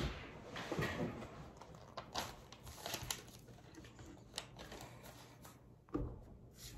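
Plastic Lego pieces clicking and rattling softly as they are handled, in scattered light taps, with a louder knock about six seconds in.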